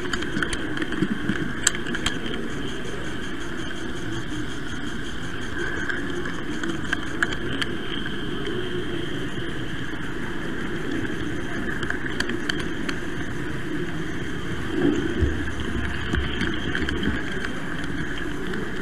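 Model train rolling along its track, heard from a camera riding on it: a steady rumbling run of wheels on rails and motor, with occasional short clicks.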